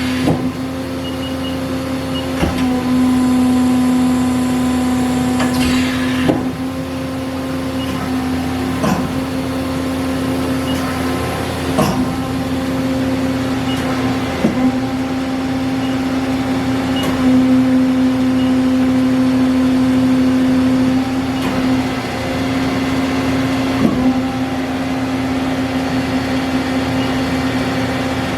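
Mori Seiki SL-75MC CNC lathe running under power, a steady mechanical hum with a sharp clunk every two to three seconds.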